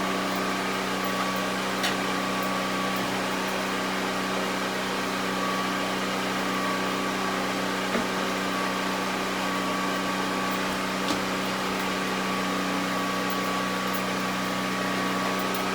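Steady mechanical hum with a few faint light clicks.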